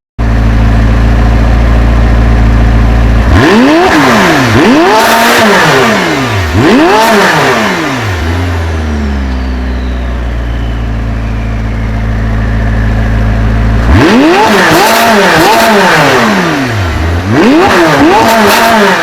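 McLaren twin-turbo V8 idling, then blipped through a quick series of about five revs that rise and fall. It settles back to idle for several seconds, then gets another run of quick revs near the end.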